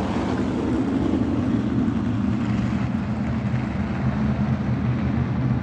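A pack of 360 sprint cars' V8 engines running together at race speed: a steady, dense engine drone.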